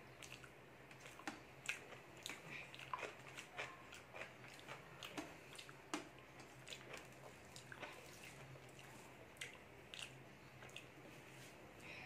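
Eating rice and dal by hand: soft wet squishing as fingers mix and scoop the food, chewing, and many small irregular clicks and smacks throughout.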